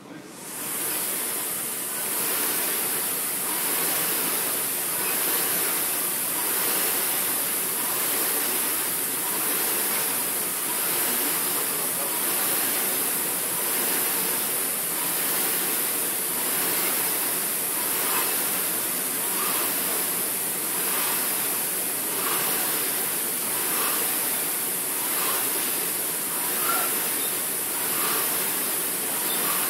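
Concept2 rowing machines' air flywheels spinning up as rowing begins, then a steady whooshing rush of air through the fan housings that swells with each stroke, about one stroke every second and a half.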